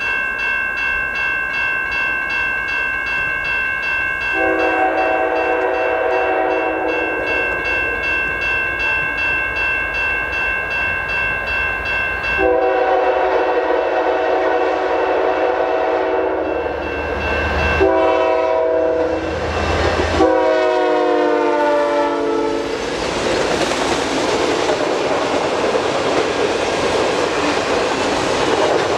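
Grade-crossing bell ringing steadily, then the air horn of a CN GE ES44DC locomotive sounds the long-long-short-long crossing signal, starting about four seconds in. Its last long blast drops in pitch as the locomotive passes. For the last several seconds the freight cars rumble and clack over the crossing.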